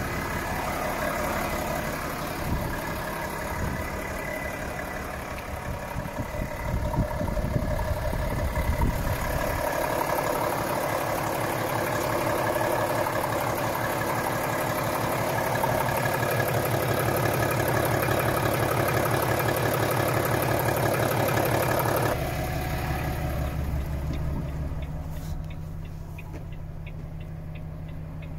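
Volvo FH 540's 13-litre six-cylinder diesel idling steadily. About two-thirds of the way through the sound drops abruptly and turns duller, heard from inside the cab.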